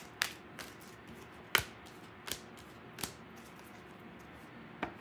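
Tarot deck being shuffled by hand: faint card rustle broken by several sharp snaps of cards, the loudest about a second and a half in.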